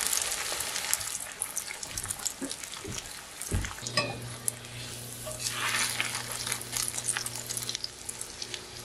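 Breaded pork cutlet shallow-frying in oil in a stainless steel skillet: a steady sizzle with fine crackling. Tongs knock against the pan about midway as the cutlet is turned, and the sizzle briefly grows louder.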